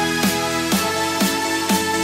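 Electronic background music with a steady kick-drum beat, about two beats a second, over held chords.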